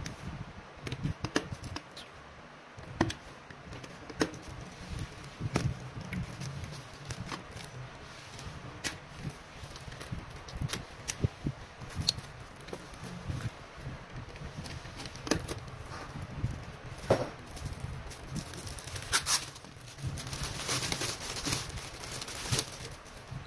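Plastic sleeve and card backing handled on a desk: scattered light taps, slides and rustles, then a couple of seconds of clear plastic wrap crinkling near the end.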